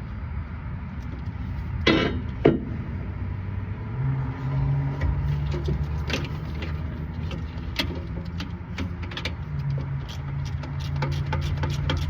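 Hand tools clinking and knocking on metal during work on an air compressor's starter: two sharp knocks about two seconds in, scattered clicks, and a quick, even run of clicks near the end. Under it runs a steady low engine hum.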